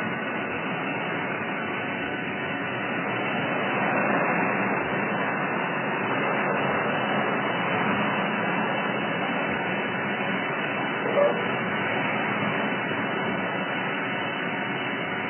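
DOIMAK RI-C CNC internal grinder running with a steady mechanical noise, with a short tone about eleven seconds in.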